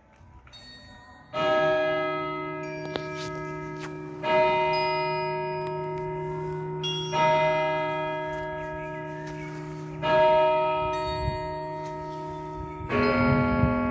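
A church bell striking four slow, evenly spaced strokes about three seconds apart, each ringing on and fading. Near the end a different bell strikes and the ringing thickens.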